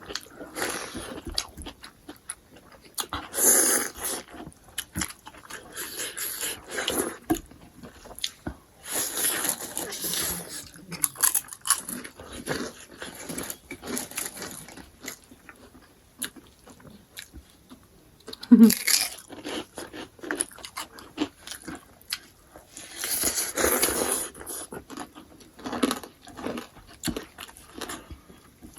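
Close-up eating sounds from a mukbang of crab and eggs: irregular chewing, biting and crunching with wet mouth noises. A louder sharp sound comes past the middle.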